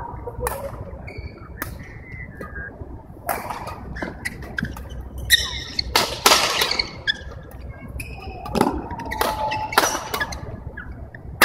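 Badminton play: sharp racket-on-shuttlecock hits at irregular intervals, several in quick succession around the middle and again near the end, mixed with short high squeaks of shoes on the court floor.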